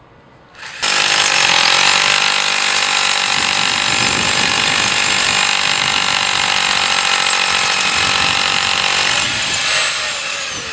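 Corded electric hammer drill boring a 10 mm anchor-bolt hole into concrete, a loud steady hammering drone that starts sharply about a second in and fades near the end.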